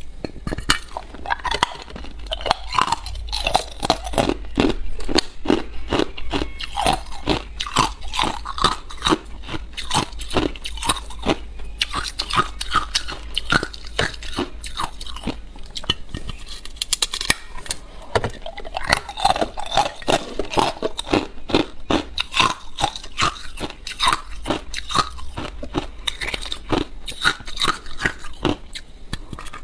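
Ice being bitten and chewed, a dense run of crunches several a second without a break.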